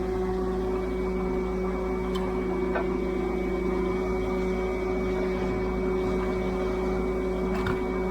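A steady machine hum with a couple of constant tones over a low rumble, and a few faint clicks.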